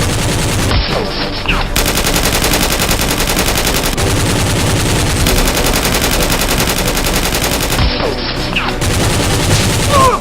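Continuous rapid automatic gunfire, a dense, steady stream of shots with no pauses.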